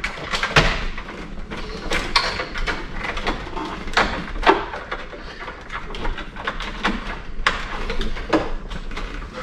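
Irregular clicks and knocks of wiring connectors being pushed into the back of a school bus's instrument gauge cluster and the parts being handled behind the dash.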